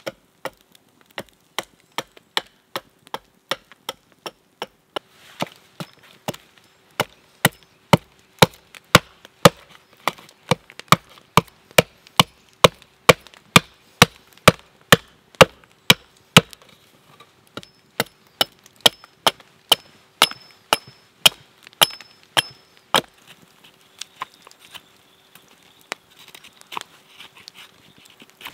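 Small axe hewing a wooden spoon blank on a stump chopping block: a steady run of sharp chopping blows, about two a second, each knocking off wood chips. The blows stop about three-quarters of the way through, leaving fainter scraping.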